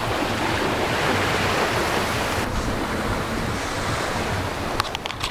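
Water rushing and splashing along the hull of a Najad 390 sailing yacht under sail, with wind buffeting the microphone. A few sharp clicks near the end.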